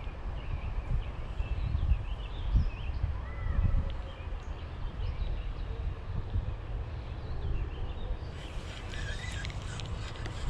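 Small birds chirping over a steady low outdoor rumble, with short calls and little pitch glides scattered all through.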